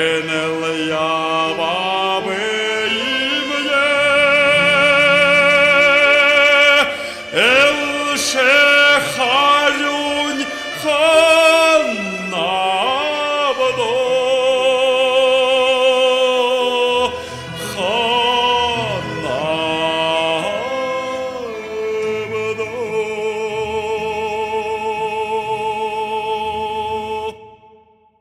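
Song's final phrases sung by an opera-trained male voice with wide vibrato, sliding up and down in long arcs, over an accompaniment of Buryat folk instruments. It closes on a long held, wavering note, and the sound stops abruptly about a second before the end.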